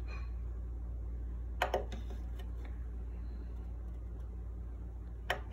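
Steady low hum from a powered-up Monoprice MP Select Mini V2 3D printer, broken by sharp clicks: a quick double click about a second and a half in and a single click near the end.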